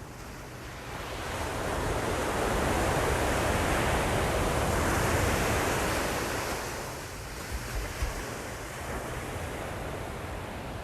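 Ocean surf: a wave builds, breaks and washes in, swelling over a couple of seconds and fading away, followed by a few low thumps and a steady wash of water. Wind buffets the microphone.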